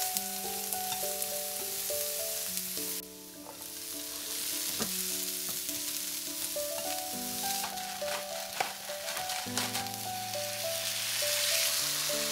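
Julienned carrot and potato sizzling in hot oil in a frying pan as they are stir-fried, with scattered clicks and scrapes of the utensil against the pan. The sizzle dips briefly about three seconds in and is loudest near the end. Soft background music with sustained notes plays underneath.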